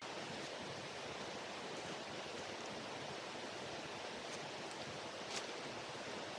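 Steady rushing of a stream running close by, with a couple of faint clicks in the second half.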